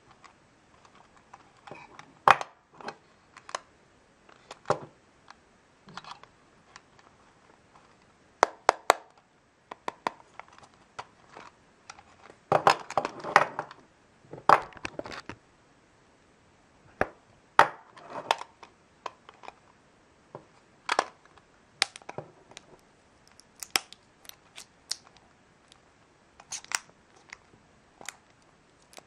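A small plastic-wrapped candy box with a wire handle being handled: scattered short clicks, taps and plastic crinkling as the wrap is picked at, with a denser run of crinkling about twelve seconds in.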